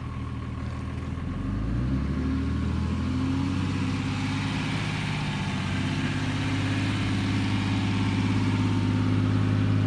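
A motor vehicle's engine revs up about a second and a half in, then runs steadily at an even, higher pitch.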